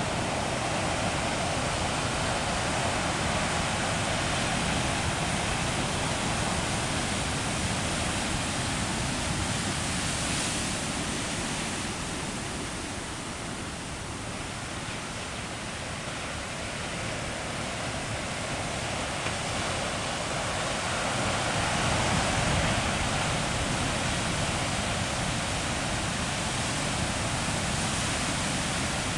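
High surf breaking and whitewater rushing over a rocky shore: a continuous wash of crashing water that eases a little midway and builds again later.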